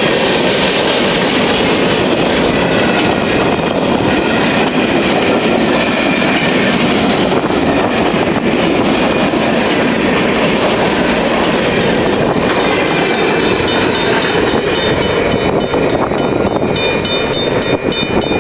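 Empty centerbeam lumber flatcars rolling past fast, steel wheels clattering over the rail joints. In the last few seconds, as the end of the train goes by and the rolling noise thins, the Safetran crossing bell rings steadily in regular strokes.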